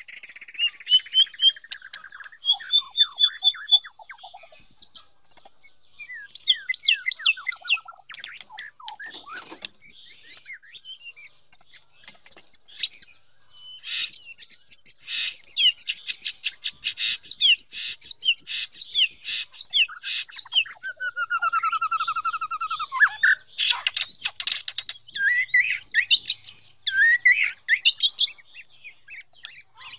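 White-rumped shama singing: a varied song of whistles, glides, trills and fast runs of sharp notes, phrase after phrase with short pauses between them.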